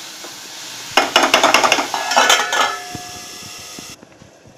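Sliced mushrooms sizzling in butter in an aluminium kadai while a metal spatula scrapes and clatters against the pan and a steel lid clinks onto it, with a short metallic ring. The sizzling cuts off suddenly near the end.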